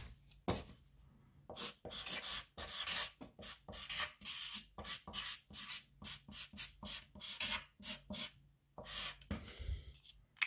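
Felt-tip marker writing on a sheet of paper: a rapid series of short scratchy strokes as letters are drawn, a brief pause, then a few more strokes near the end.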